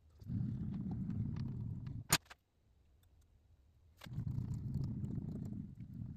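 Precision Matthews PM-1228 lathe carriage being run along the bed by hand while a dial indicator checks the DRO scale bracket for alignment. Two stretches of low rumbling, about two seconds each, with a sharp click between them.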